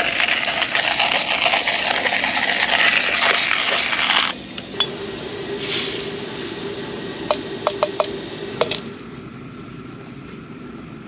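Coffee being made: a rough, gritty noise for about four seconds that cuts off suddenly, then a steady low hum with a quick run of light clinks before it fades.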